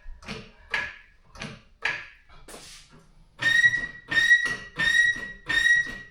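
Car jack being worked in rhythmic strokes to lift the car. At first there are quick, short strokes about three a second. After a brief pause the strokes slow to about one every 0.7 seconds, and each one gives a high squeal.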